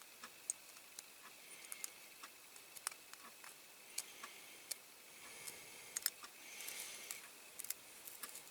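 Faint, irregular small clicks and ticks of a tiny screw and screwdriver working into a die-cast metal toy model, with a brief scraping rasp about six and a half seconds in, as the screw resists threading straight.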